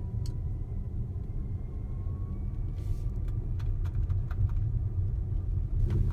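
Tesla Model S P85D driving uphill on snow, heard inside the cabin: a steady low rumble of tyres and road. A faint high whine rises slightly partway through, and a few light clicks come near the end.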